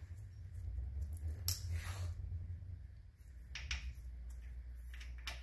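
Small metal clicks and rattles as a Kawasaki Brute Force 750 ATV's front brake caliper and new brake pads are handled and fitted by hand. There is one sharp click about a second and a half in and a few lighter clicks near the end, over a low steady hum.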